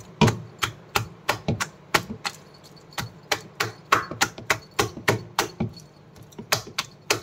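A hand beating a thick, sticky flour-and-curd bonda batter in a bowl: a quick run of wet slaps, about three a second, with a brief pause near six seconds in.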